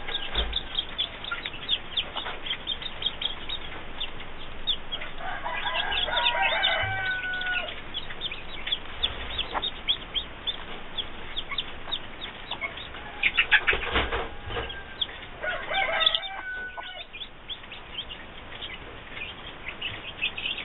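Newly hatched chicks peeping with a steady run of short, high cheeps, while the mother hen answers with soft clucks and a few longer calls about a third of the way in and again past the middle: a broody hen talking to her chicks. A brief flurry of rustling comes just before her second calls.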